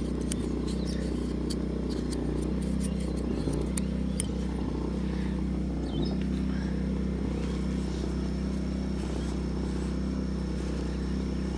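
Small portable generator engine running steadily under load, an even low hum that holds its pitch.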